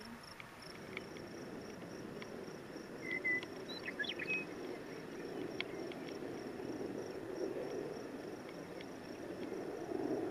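An insect chirping in a short, high, even pulse about three times a second. A few brief bird chirps come a few seconds in, over a faint steady outdoor rush.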